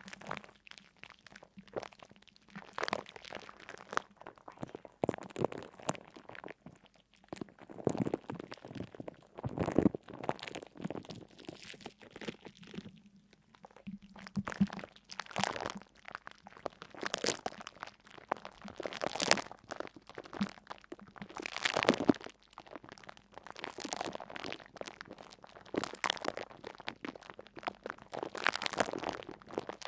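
Irregular crunching and crackling, crunch after crunch every second or so, as something brittle is crushed.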